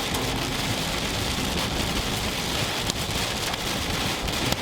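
Hail mixed with heavy rain pelting the storm chaser's vehicle: a dense, steady patter of many small hard hits.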